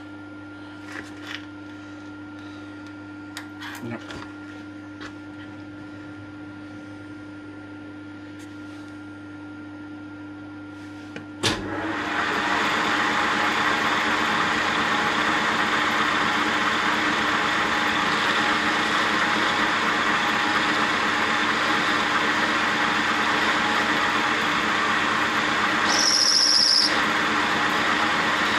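A metal lathe starts with a sharp click about eleven seconds in and runs on loudly and steadily, turning the tractor steering column shaft under the cutting tool. Before it starts there is a low steady hum with a few small clicks. About two seconds before the end the cut gives a brief high squeal.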